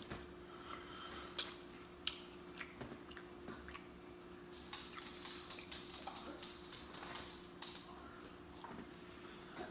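Close-up mouth sounds of pizza being chewed: wet lip smacks and clicks, coming thicker about halfway through.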